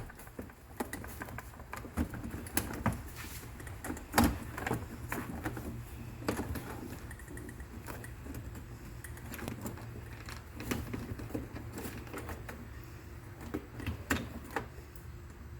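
Irregular plastic clicks, taps and knocks from a car's interior door panel being worked loose and lifted off the door, with one louder knock about four seconds in.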